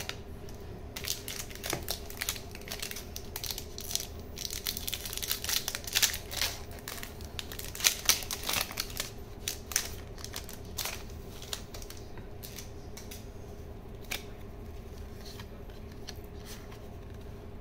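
Foil Pokémon booster pack wrapper crinkling and tearing open in the hands, a dense run of crackles that dies down after about ten seconds.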